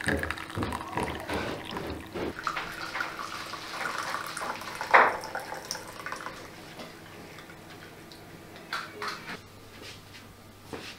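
Hot liquid poured from a kettle into ceramic cups, a splashing trickle that eases off after about six seconds. There is one sharp clink of ceramic about five seconds in.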